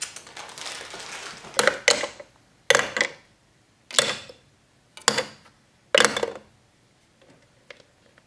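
Hard plastic balls dropped by hand into the plastic ball collector tray of a Chaos Tower marble run: about six separate clacks, roughly a second apart.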